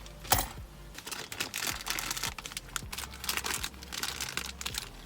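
Paper food wrapper crinkling and rustling in dense, irregular crackles, after one sharp tap about a third of a second in.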